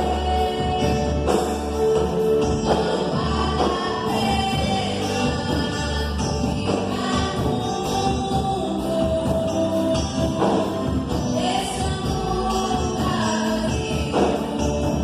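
Gospel song performed by a band, with a group of voices singing together over a steady bass.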